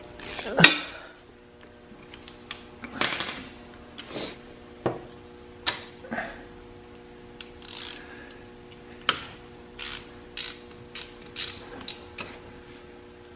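Hand tools working on a quad's engine: a ratchet wrench clicking in short strokes, with metal parts clinking and scraping. A steady hum runs underneath.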